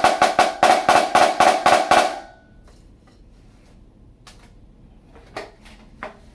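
Dynasty 14-inch snare drum with a Remo Weather King Black Max head, struck in a quick, even run of about six strokes a second. Each stroke rings with a clear tone. The run stops about two seconds in, and a few faint taps follow.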